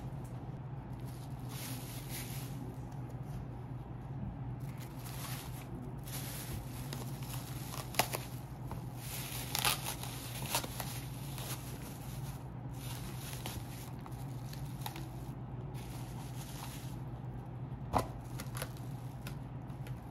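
Intermittent rustling and crinkling, with sharp clicks about eight seconds in and again near the end, over a steady low hum.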